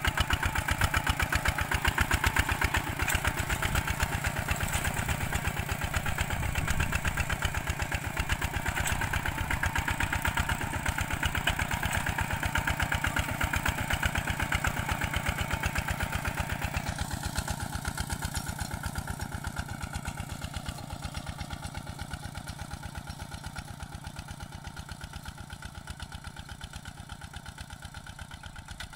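Tractor engine running steadily with an even pulsing beat, growing gradually fainter in the second half.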